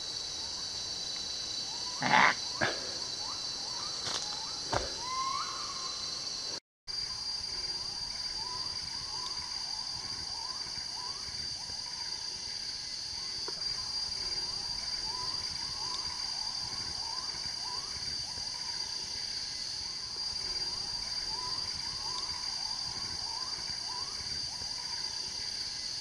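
Tropical rainforest ambience: a steady high-pitched insect drone, with short rising chirps repeating about once a second after the first few seconds. A few sharp knocks or cracks sound in the first five seconds.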